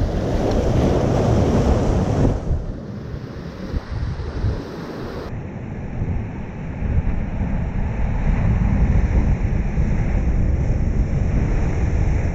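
Sea waves surging and washing over shoreline rocks, loudest in a surge over the first two seconds, with wind buffeting the microphone and rumbling throughout.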